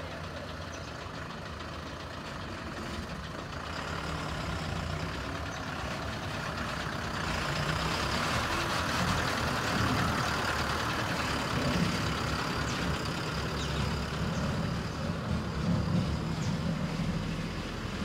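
Eicher tipper truck's diesel engine running as the truck drives off across the dirt, getting louder a few seconds in as it comes past.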